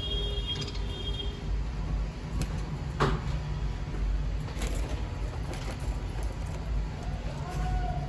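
Steady low rumble of background noise, with a few brief chirps from small caged parrots, one sharper call about three seconds in.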